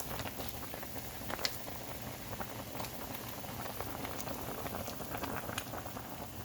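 A large pot of seafood boil with crawfish, crab claws, sausage, corn and potatoes, boiling steadily. A continuous bubbling hiss is broken by scattered small pops and clicks, with a sharper click about a second and a half in and another near the end.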